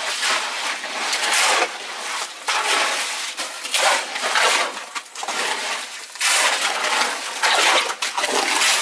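Shovels scraping and crunching through wet concrete, in a quick irregular string of strokes, as a foundation tie beam is filled.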